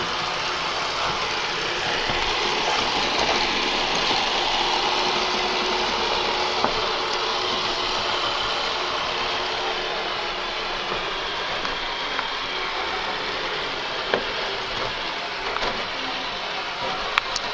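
Roomba Sage robot vacuum running with a steady whir from its vacuum motor and brushes as it drives looking for its home base dock. A few sharp clicks stand out, one about 6 seconds in and two near the end.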